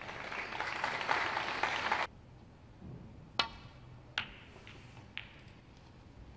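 Audience applauding, cut off suddenly about two seconds in. Then a snooker break-off: a sharp click of the cue striking the cue ball, the cue ball cracking into the pack of reds just under a second later, and one lighter click of balls colliding about a second after that.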